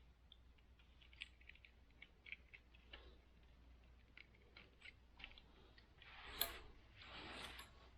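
Faint scattered clicks and ticks of the last bits of excess charcoal fiberglass window screen being trimmed off at a corner of the frame, with two short louder scraping rustles about six and seven seconds in.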